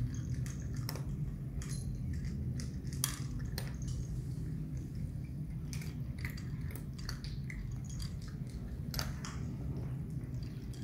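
A kitten eating cat food from a plastic bowl: irregular crunching and small clicks of chewing, over a steady low hum.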